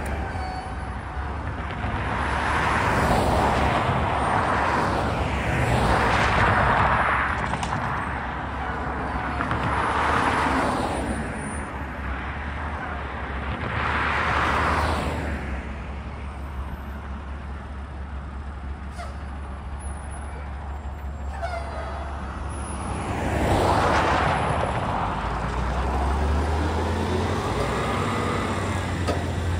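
Road traffic: cars pass one after another, each a swish of tyre noise that rises and fades. Under them runs the steady low rumble of a semi-truck's diesel engine as it crawls along pulling two trailers. The rumble grows louder near the end.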